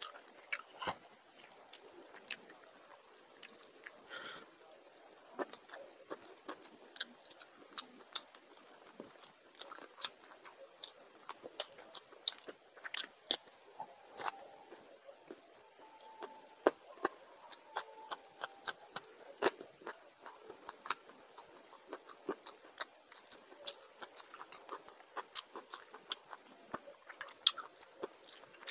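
A person chewing and smacking on mouthfuls of rice and fish curry eaten by hand. It comes as a fast, irregular run of wet clicks and crunches.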